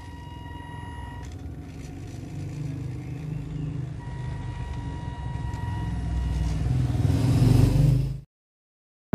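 Diesel truck engine running and building up revs, the low rumble growing steadily louder, then cutting off abruptly near the end. A steady high tone sounds twice, for a second or two each time, over the engine.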